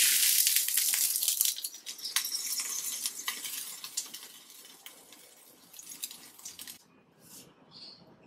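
Bife de chorizo (strip steak) sizzling and crackling on a hot ridged griddle pan, cooked medium and being lifted off with wooden tongs. The sizzle fades over several seconds, then cuts off abruptly, followed by a couple of faint short sounds near the end.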